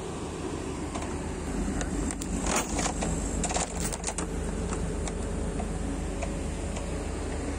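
Heavy-equipment diesel engine idling steadily, with a run of metallic clinks and rattles about two to four seconds in as the steel lifting chain is handled against the generator's sheet-metal housing.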